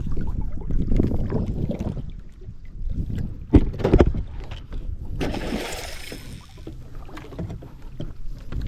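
Small boat at sea: water slapping against the hull with a steady low rumble of wind on the microphone. Two sharp knocks come just after the midpoint, followed by a brief hissing rush.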